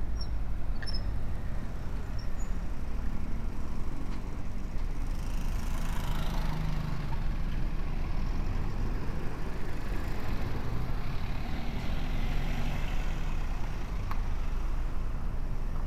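Steady low rumble of wind and road vibration on the microphone of a bike-mounted camera riding along a street, with traffic noise that swells about six to seven seconds in.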